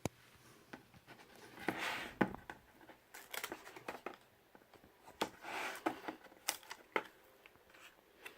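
Pages and flaps of a lift-the-flap picture book being turned and handled: paper rustles and light clicks in several short bursts.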